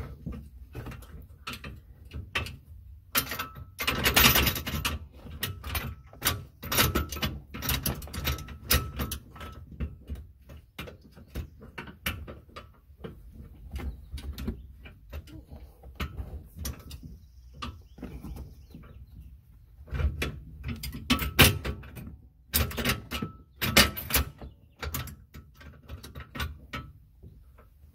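Irregular metallic clanks, knocks and scraping from a powder-coated steel grille guard mounting bracket and its bolt being handled and pushed into place against a vehicle's front frame, busiest about four seconds in and again from about twenty seconds in.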